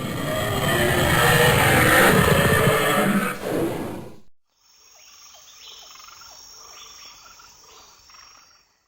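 Added film sound effects: a loud, dense rushing sound for about four seconds that cuts off abruptly. It is followed by a quieter animal ambience with a string of short croaks, about two or three a second.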